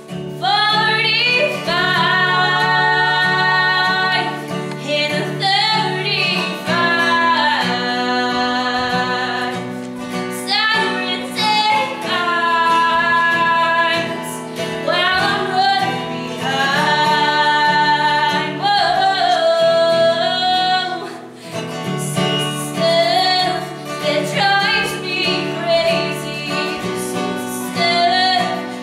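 A female vocalist singing a pop-style worship song, holding long wavering notes, over acoustic guitar accompaniment.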